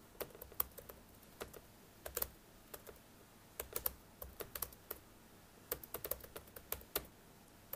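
Typing on a computer keyboard: irregular keystroke clicks in short runs with small pauses between words.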